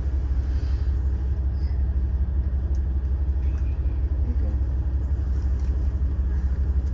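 Diesel railcar's engine idling with a steady low rumble, heard from inside the passenger car while the train stands stopped.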